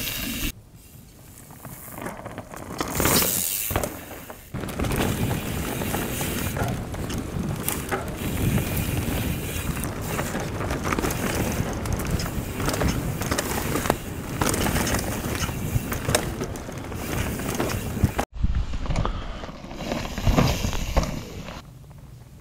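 Mountain bike rolling fast over dirt singletrack: the tyres give a steady rumbling crunch, with frequent rattles and knocks from the bike and chain over bumps. It is quieter at the start and again near the end, where the bike passes further away.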